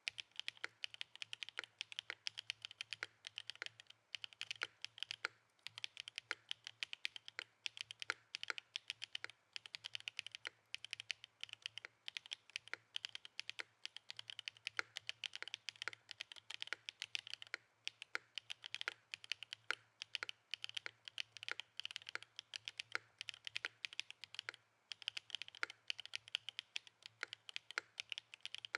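Continuous typing on an Alexotos Sonnet mechanical keyboard fitted with SWK Yang switches: a fast, irregular run of keystrokes, broken by short pauses a few times.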